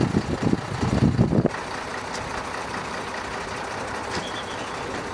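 Low rumble of a vehicle engine idling. About a second and a half in it cuts abruptly to a steady hiss of outdoor noise, with a faint high chirp near the end.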